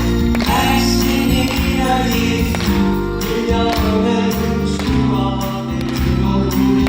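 Live musical-theatre song: a band playing with a steady beat under sustained chords, with singing voices.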